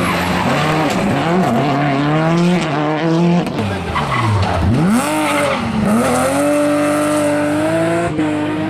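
Rally car engines at racing revs passing close by. The pitch swings up and down with gear changes and lifts off the throttle, plunges deepest a little before the middle, then climbs and holds high under hard acceleration.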